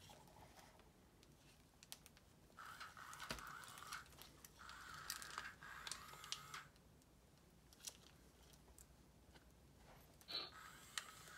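Faint handling noise of a plastic toy mechanism being taken apart: scattered small clicks and two short stretches of scraping as plastic parts and wires are worked loose by hand.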